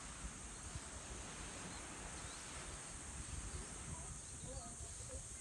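Steady high-pitched insect drone, with wind rumbling on the microphone and a few short bird chirps in the second half.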